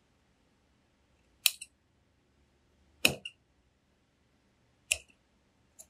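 Large tailor's shears cutting through suit-jacket wool along the armhole curve: three sharp snips about a second and a half to two seconds apart, then a fainter fourth near the end.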